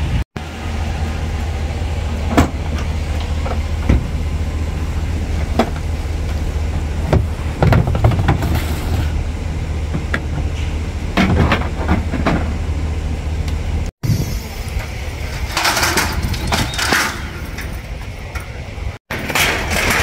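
Steady low mechanical hum, with scattered knocks and clunks as frozen bagged chickens are handled and loaded.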